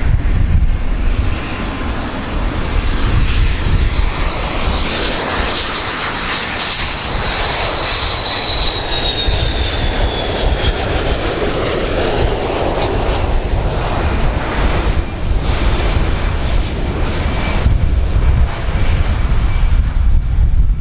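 Boeing 727 tri-jet on landing approach with gear down: a steady jet-engine rumble with a high whine that drops in pitch as the aircraft passes, about ten seconds in.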